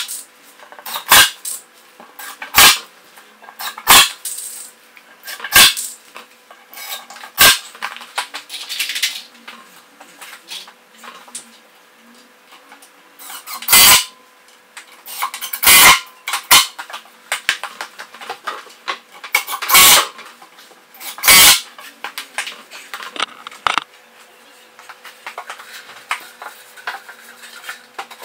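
A series of sharp knocks and clacks while working on an MDF shelving carcass: about six evenly spaced roughly a second and a half apart, then after a pause about five more at uneven intervals, with softer clatter in between.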